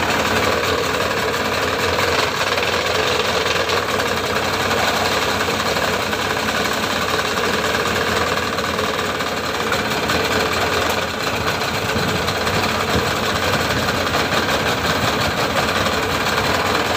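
Yamaha 25 hp outboard motor running steadily with its cowling off, its lower unit churning the water in a test barrel.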